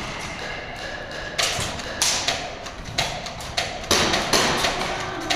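Airsoft gunfire in a warehouse game: irregular sharp cracks and thuds, about eight in all, shots and BBs striking nearby cover.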